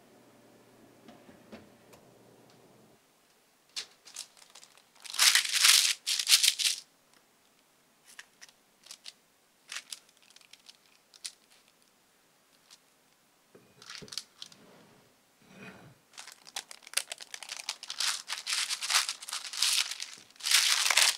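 Baking parchment paper crinkling and rustling in loud bursts, about five seconds in and again over the last four seconds, as the crisp tortilla pizza is handled on it. Between them come scattered crunches and clicks of a knife cutting the crisp crust on a wooden board, and a few low knocks. A faint low hum stops about three seconds in.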